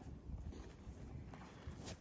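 Faint knocks and clicks of hand work on asphalt roof shingles during a shingle repair, over a steady low rumble; the clearest knock comes near the end.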